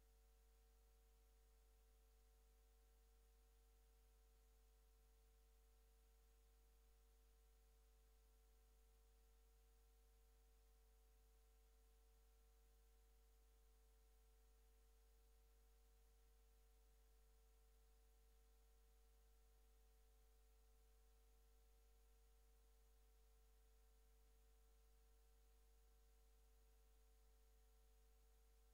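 Near silence: only a very faint, steady hum with a light hiss, unchanging throughout.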